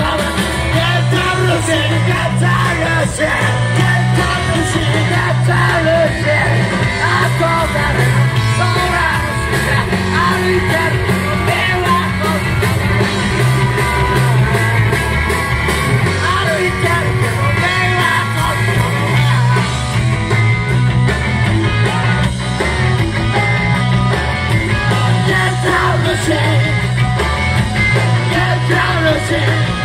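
Rock 'n' roll band playing live at full volume: electric guitar, bass and drums, with a singer shouting the vocals.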